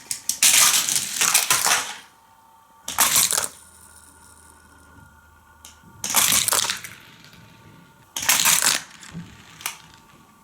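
Die-cast Hot Wheels cars clattering along plastic stunt track in four loud rattling runs, the first the longest at over a second, the others under a second each.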